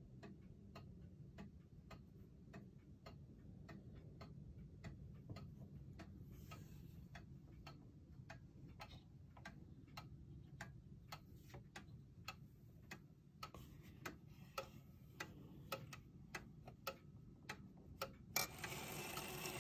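Kienzle pendulum wall clock ticking steadily, a faint, even run of sharp ticks. Near the end comes louder handling noise as a finger pushes the minute hand round.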